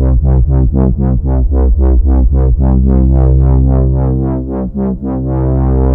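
Sampleson Sandstorm software synthesizer playing a fast arpeggio of repeated notes, about five or six a second, over a deep sustained sub-bass.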